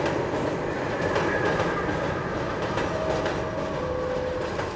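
New York City subway train running alongside the platform, its wheels rumbling and clattering over the rails. About three seconds in, steady two-note tones step down in pitch.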